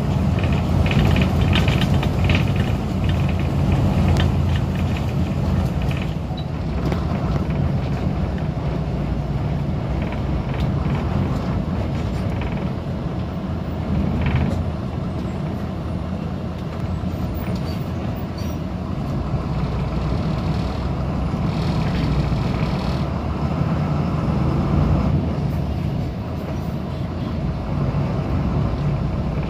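Engine and road noise of a moving vehicle heard from on board: a steady low hum, with clicks and rattles that are busiest in the first few seconds.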